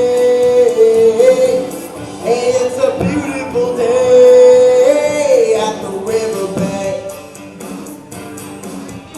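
A country song performed live: a sung voice holding long notes over instrumental backing. It drops noticeably in level a little past halfway.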